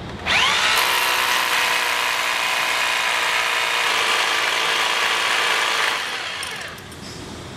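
Rotary hammer drilling the hole for a drop-in anchor: the motor spins up with a rising whine about a quarter second in, runs steadily for nearly six seconds, then winds down.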